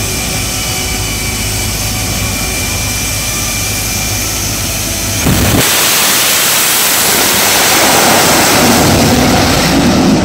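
The jet engine of a jet-powered semi truck whines steadily at the starting line. About five seconds in, it goes to full thrust with a sudden, loud roar as the truck launches down the drag strip.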